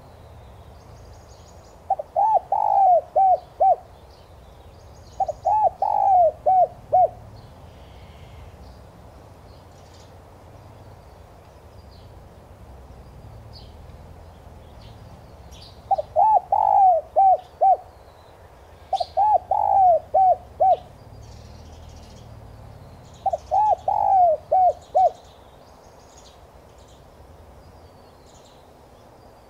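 Spotted dove cooing: five short phrases of several quick coos each, with a long pause between the second and third.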